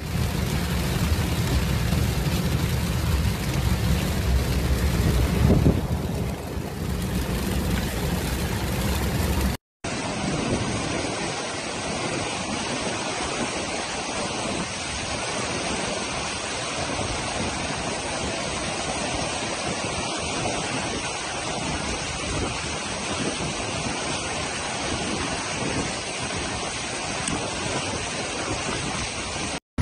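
Heavy rain and road rumble heard from inside a moving car. About ten seconds in, an abrupt cut to a flash flood: a muddy torrent rushing down a wadi with a steady roar of water.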